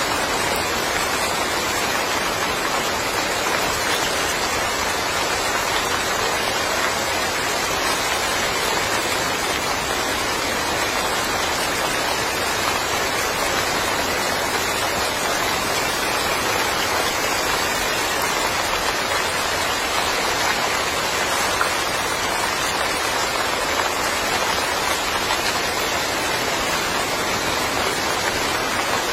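Steady summer rain falling on a yard, an even hiss of many drops with no breaks or changes.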